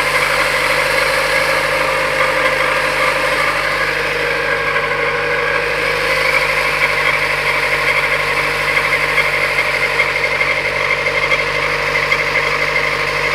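Citroën Xsara 1.8i 16v petrol engine idling steadily with a strange steady whine from the timing belt area. It appeared after the timing belt, tensioner, pulley and water pump were replaced with a Dayco kit, and the owner is unsure whether the belt itself or a bearing is making it.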